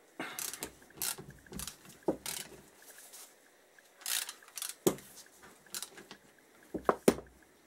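Ratchet and socket working the bolts of a Kawasaki KZ650 front brake caliper: irregular metal clicks, scrapes and clinks of the tool against the caliper, with a few sharper clacks about five and seven seconds in.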